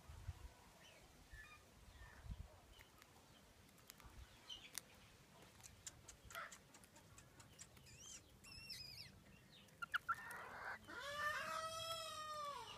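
Frizzled Pekin bantam chickens making faint soft calls, with scattered light ticks as they peck at a wooden log. Near the end one bird gives a single longer call that rises and then falls in pitch.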